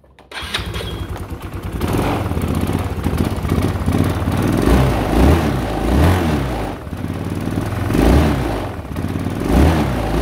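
Yamaha Cygnus scooter's 125 cc single-cylinder four-stroke engine starting up just as the clip begins and then running. The throttle is blipped several times, so the revs swell and fall back.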